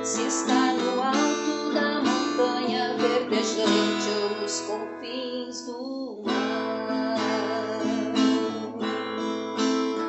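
Slow acoustic guitar music, strummed chords with sustained notes.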